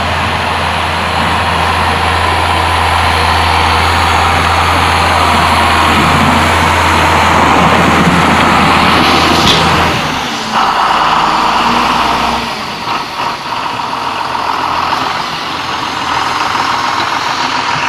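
Farm tractor's diesel engine running under load while its front-end loader pushes snow. The engine's steady low note changes about ten seconds in, and the sound wavers from there on.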